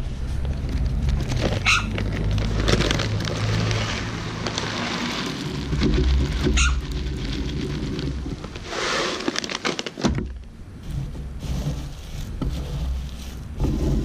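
Dry sunflower seeds and parrot-food pellets rattling in a stainless steel cup as they are poured in and stirred by hand, with the crinkle of plastic food bags and a few sharp clicks. A steady low rumble runs underneath.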